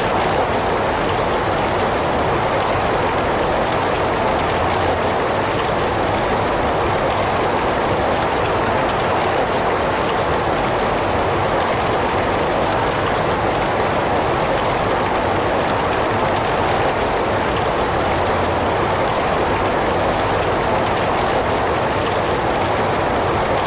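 Heavy rain falling steadily: a dense, even hiss of rain without breaks.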